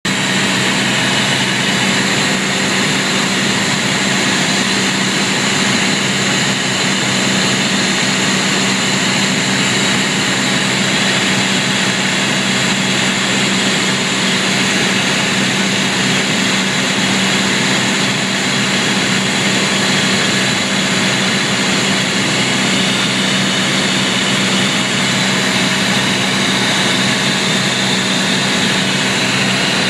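Cabin noise of a light propeller airplane in cruise flight: the engine and propeller drone steadily and unchanging, heard from inside the cabin.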